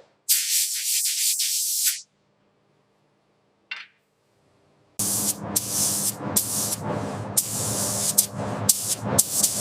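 Hissing spray from a nozzle, in two goes. First a thin hiss of under two seconds. After a pause of about three seconds, a louder, fuller spray starts about five seconds in and runs on, cut by many quick stops as the trigger is worked.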